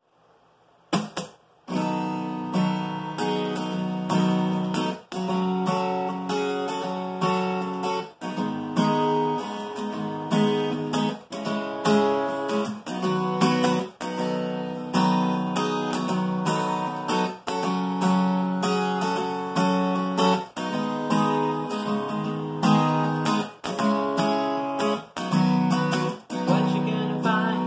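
Acoustic guitar with a capo strummed in a steady rhythm, a chord intro starting about a second in, with brief breaks about every three seconds at the chord changes.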